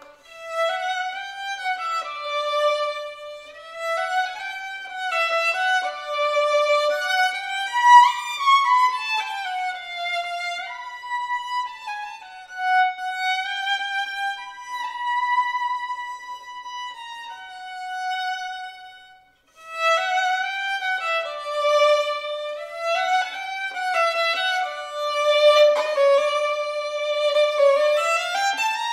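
Solo violin played with the bow, unaccompanied: a single flowing melodic line of moving notes, with a brief break about two-thirds of the way through.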